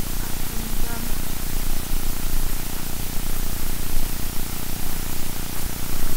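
Wind rushing over the microphone of a camera on a moving bicycle: a loud, steady roar of noise with low buffeting.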